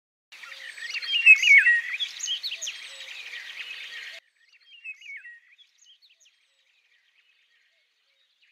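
Birdsong: a dense chorus of chirping birds that cuts off abruptly about four seconds in, followed by a few scattered faint chirps.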